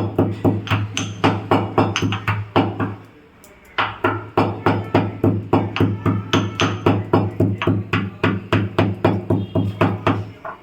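Mustard seeds being pounded with a pestle in a mortar: quick, regular strokes at about three a second, with a brief pause about three seconds in before the pounding resumes.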